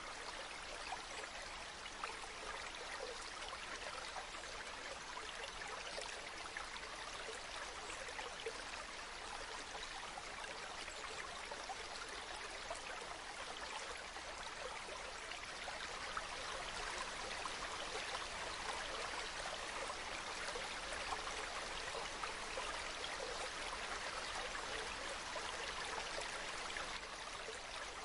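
Waterfall: a steady rush of falling water, a little louder through the second half.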